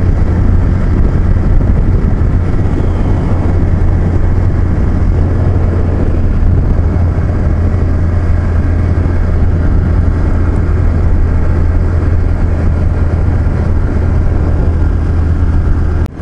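Motorcycle running steadily at cruising speed, a constant low rumble with road and wind noise over it.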